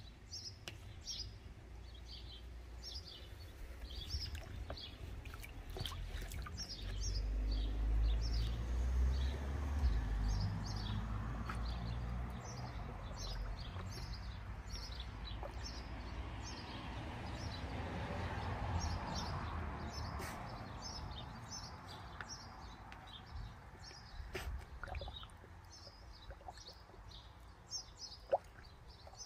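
Small birds chirping, short high chirps repeating a few times a second throughout, over a low rumble that swells for a few seconds about a third of the way in and a soft hiss through the middle.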